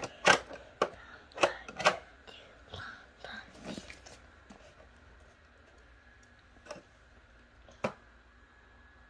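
Hot Wheels die-cast toy cars and plastic playset track pieces clicking and clattering as they are handled. There is a quick run of sharp clicks over the first few seconds, then two lone clicks near the end.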